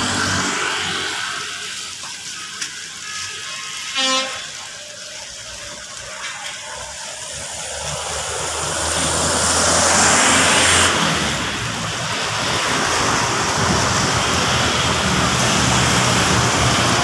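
Road traffic going by close: motorcycles and buses passing, with a short horn beep about four seconds in. A rush of noise builds to a peak around ten seconds as a vehicle passes, then a steady engine hum carries on.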